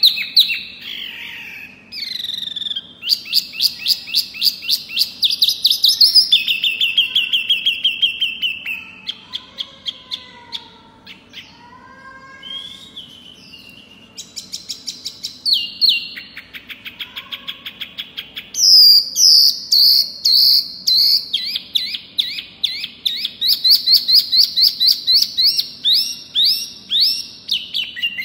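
Caged wambi mini songbird singing: loud, fast trills and rattling runs of high notes, many a second, broken by a quieter stretch of varied short whistles and glides in the middle before the rapid trills start again.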